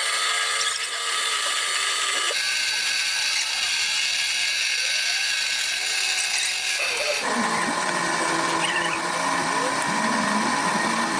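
Metalworking machine tool running with a steady high-pitched whine and hiss, its sound changing abruptly about two seconds in and again about seven seconds in.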